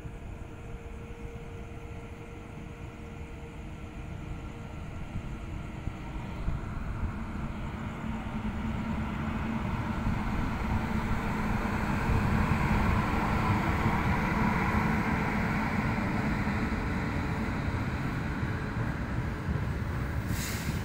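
Indian Railways passenger train running along the station platform, its locomotive and coaches making a steady rail rumble with a low hum that grows louder over the first half and then holds. A brief sharp click comes right at the end.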